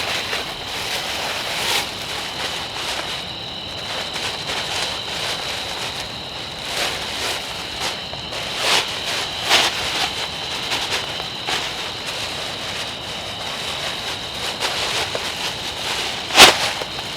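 Rain falling in a forest, with scattered drips and knocks and a steady high-pitched drone underneath; one sharp knock stands out near the end.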